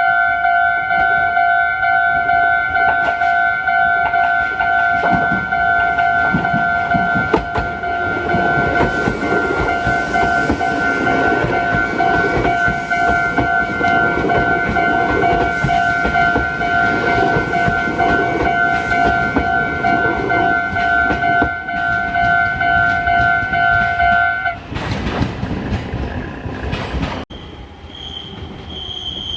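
Japanese level-crossing warning bell ringing in a steady pulsing beat while a Meitetsu μSKY train rolls slowly past, its wheels clicking over the rail joints. The bell stops about 24 seconds in.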